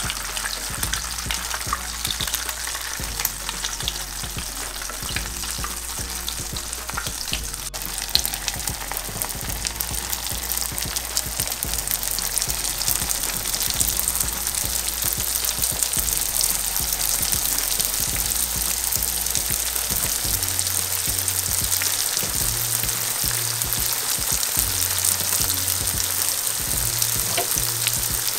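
Pieces of pişi dough deep-frying in hot oil in a pan, a steady sizzle that grows a little louder in the second half.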